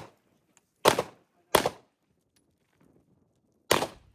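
Three gunshots in a shooting course of fire: two in quick succession about two-thirds of a second apart around a second in, then a pause of about two seconds before a third shot near the end.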